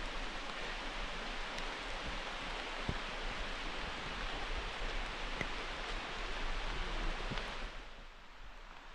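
Steady hiss of rain falling on the forest, with a few faint ticks of drops. The hiss drops away near the end.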